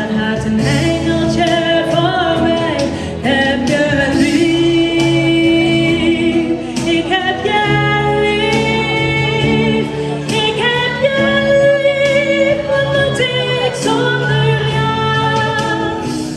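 A pop ballad with a female singer holding long, wavering notes over a band backing with bass and regular drum hits.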